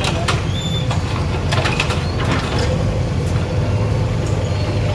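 JCB backhoe loader's diesel engine running steadily, with scattered sharp knocks and clatter during the first few seconds as the machine works the demolished shopfront.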